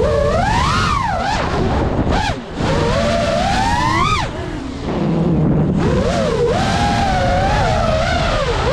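Brushless motors and propellers of a 5-inch FPV freestyle quadcopter whining, the pitch sweeping up and down with the throttle, with sharp throttle cuts about two seconds in and again around four and a half seconds, the second after a steep rise in pitch.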